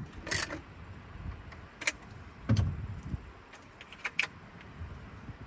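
Scattered handling clicks and knocks as battery cable lugs are tightened onto the terminal studs of a 1000 W inverter, with a duller thump about two and a half seconds in and a quick pair of clicks near the end.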